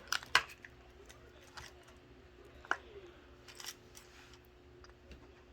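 Small objects being set down and moved about on a work table: a few scattered light clicks and knocks, the loudest just after the start, over a faint steady hum.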